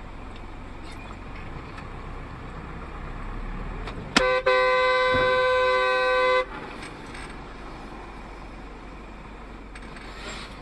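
Road noise from a moving vehicle. About four seconds in there is a sharp bang of a car collision, and a car horn follows at once, held for about two seconds.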